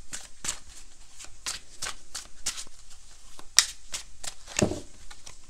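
A deck of tarot cards being shuffled by hand: a run of short card slaps and clicks, about two or three a second, with one sharper slap about three and a half seconds in.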